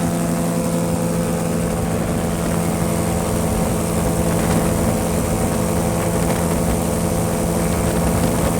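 V200 ultralight airplane's engine and propeller running steadily, with an even, unchanging pitch.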